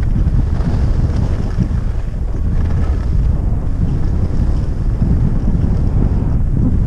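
Wind buffeting the camera microphone as the skier moves downhill: a loud, steady, low rumble.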